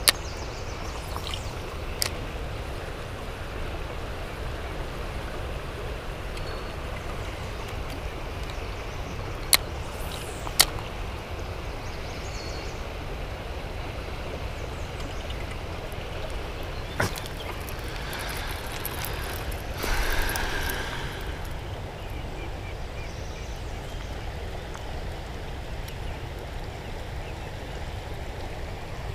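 River water flowing steadily over a shallow riffle, with several sharp clicks and a short louder rush of noise about two-thirds of the way in.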